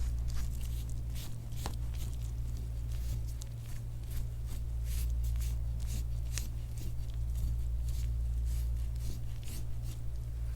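Hands rubbing and pressing over skin and clothing during soft-tissue massage: soft scratchy friction with many small irregular ticks, over a steady low hum.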